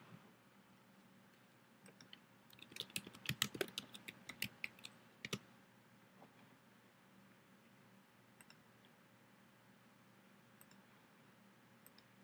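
Computer keyboard typing: a quick run of about a dozen keystrokes, followed later by a few single mouse clicks.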